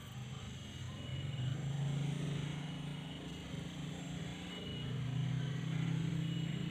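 A low, steady engine hum that grows louder about a second and a half in, dips briefly near the middle, then swells again.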